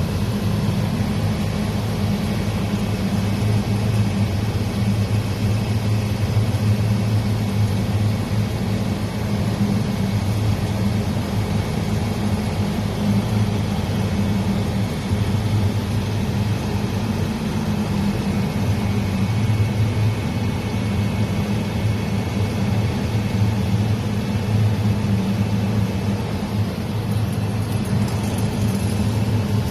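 2002 Toyota RAV4 running with a steady low drone. Somewhere in the car is a rattle that the owner cannot place.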